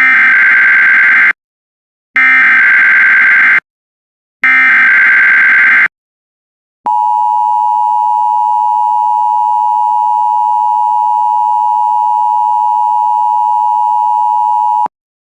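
Emergency Alert System header: three short bursts of warbling SAME digital data tones, each about a second and a half long with short gaps between them. After that comes the steady EAS attention tone, which holds for about eight seconds and cuts off abruptly near the end.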